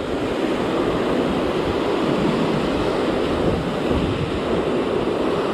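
Ocean surf: small waves breaking and whitewash washing up the sand in a steady rush, with wind buffeting the microphone.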